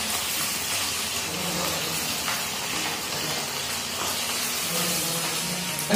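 Onions and ginger frying in hot oil in a kadhai, a steady sizzle.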